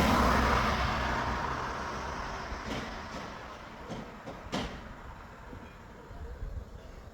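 A motor vehicle passing by, its noise loudest at the start and fading away over a few seconds. A few sharp clicks or knocks follow.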